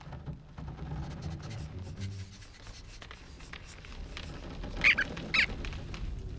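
Two short high squeaks about half a second apart near the end, over a low steady rumble.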